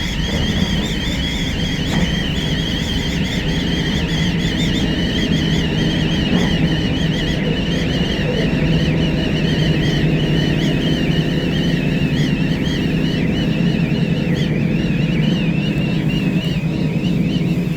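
Commuter train running at speed, heard from inside the car: a steady low rumble of wheels and wind, with a high wavering squeal over it throughout.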